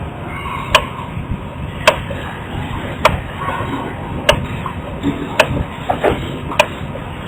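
A sharp tick that repeats at a steady pace, about once every second, over a low background rumble.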